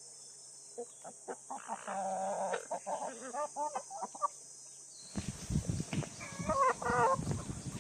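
Chickens clucking: a run of short pitched calls, then a second group of calls near the end over some low thudding.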